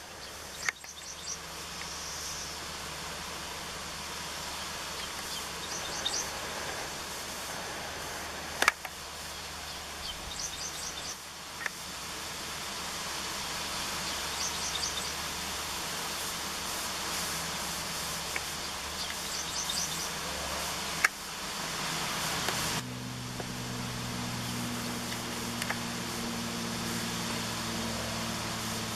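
Car running with a steady background rush, while small birds sing short, high, repeated phrases every few seconds. There are a few sharp clicks, and about three-quarters of the way through a low engine hum comes up and holds steady.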